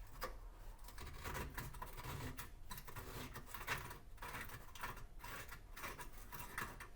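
Faint, scattered small clicks and scrapes of an oven lamp cover being unscrewed anti-clockwise by hand.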